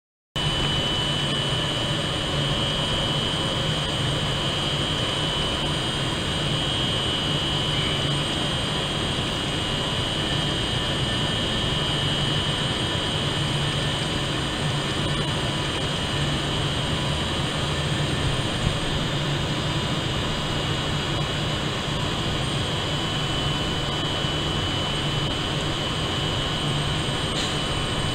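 Class 390 Pendolino electric train standing at the platform, its onboard equipment running with a steady hum and a thin high whine.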